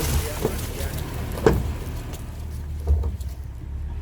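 Heavy diesel earthmoving machinery running with a steady low rumble, with a sharp knock about one and a half seconds in and another near three seconds.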